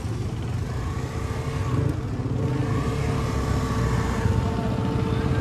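KTM Duke 250 single-cylinder motorcycle engine running under way, with road and wind noise and a steady hum; the level builds gradually.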